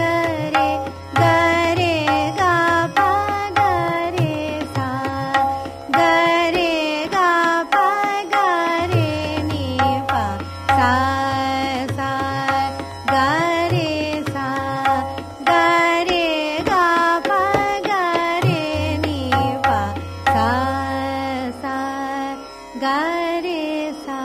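A voice singing the sthayi of a swar malika (sargam composition) in Raag Hansadhwani, using only the notes Sa Re Ga Pa Ni, with sliding phrases. It is accompanied by tabla in teentaal at a medium tempo, its deep bass strokes recurring, over a steady drone.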